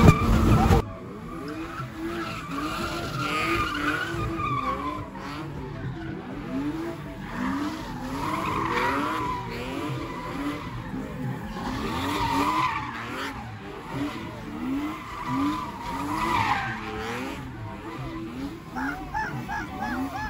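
BMW E30 doing donuts: the engine revs rise and fall over and over while the rear tyres squeal, swelling every few seconds and wavering quickly near the end. A louder burnout from another car cuts off suddenly about a second in.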